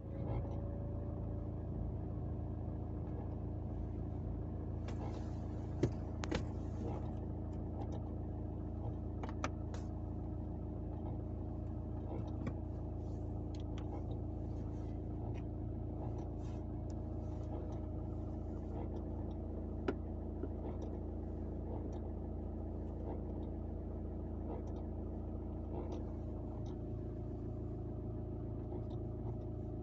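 Mitsubishi Grandis running steadily: a constant drone with a faint steady whine and scattered light clicks and ticks, the sharpest about six seconds in and another around twenty seconds. It is the car's unwanted extraneous noise that the owner is trying to pin down.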